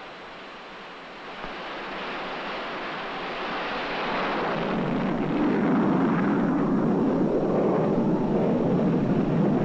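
Single-engine jet's turbojet at full power for a catapult launch: a rushing roar that grows louder and deeper over the first five seconds, then holds steady.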